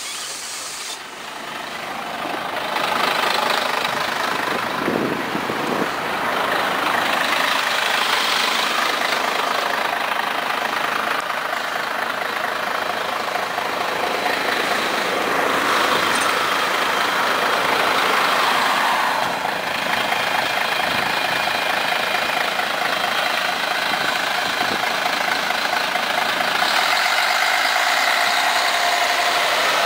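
Diesel engine of a Scania CN113ALB articulated city bus running at a stop and pulling away near the end, over the noise of street traffic.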